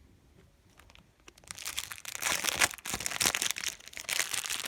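Foil wrapper of a Match Attax trading-card pack being torn open and crinkled by hand, starting about a second and a half in as a dense, irregular crackle.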